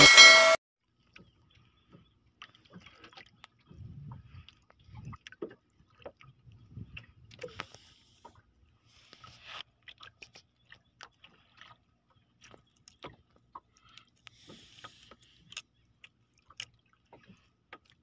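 A blast of electronic dance music cuts off half a second in. Then scattered small clicks and knocks of fishing tackle being handled on a small boat, with a few dull thumps about four to five seconds in and brief soft splashy hisses.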